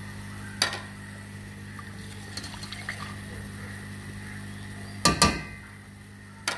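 Metal cookware clinking and knocking: a single clink about half a second in, two louder clatters about five seconds in, and another clink near the end, over a steady low hum.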